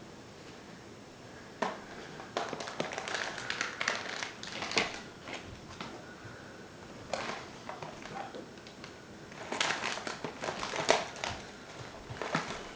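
Irregular clicks, taps and crinkly scraping of small hard plastic and metal laptop parts being handled and pried during disassembly, in three bouts with short pauses between them.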